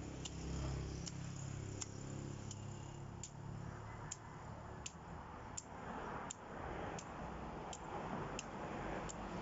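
Machete blade chopping into a thin moringa stem, a sharp tick with each stroke, evenly paced about every three-quarters of a second.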